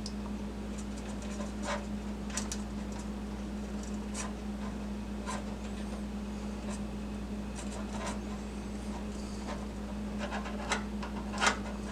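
Steady low electrical hum under a faint hiss, with scattered small clicks and ticks from handling a soldered wire splice and its heat-shrink tubing.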